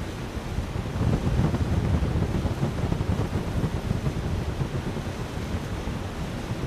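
Strong rushing wind: a steady, deep roar of moving air that swells a little about a second in, then settles.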